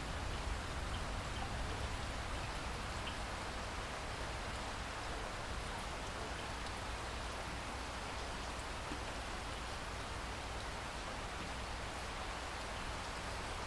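Steady rain falling, an even hiss with scattered individual drops pattering on a surface.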